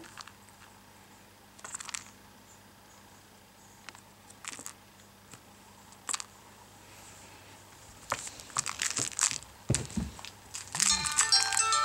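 A few sharp crinkling rustles, then dense crackling and rustling from about eight seconds in, with a couple of dull thuds. Near the end a tune of bright plinking notes comes in.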